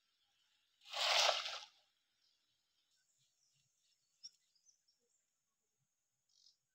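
A cast net lands on a pond's surface: one loud splash about a second long, about a second in. After it come a few faint drips and ticks as the wet net is drawn back out of the water.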